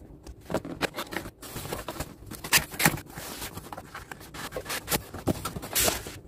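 Cardboard packaging being opened and handled: the lid of a cardboard shipping box lifted off and the boxes inside slid out, with a string of scrapes, rustles and light knocks. Two sharper knocks come about two and a half seconds in, and a longer scrape near the end.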